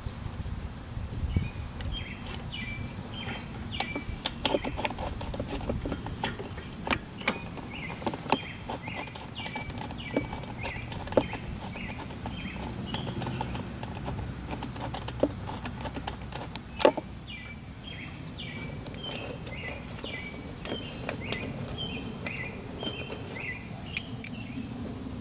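Scattered sharp clicks and clinks of hand tools and metal parts as the starter on a Kawasaki FS691V mower engine is worked on by hand. Behind them a bird sings a quick, repeated chirping phrase that stops for a few seconds in the middle.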